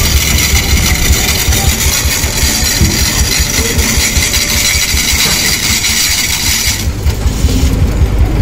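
A large engine idling steadily, with a deep pulsing rumble underneath; a steady hiss over it thins out about seven seconds in.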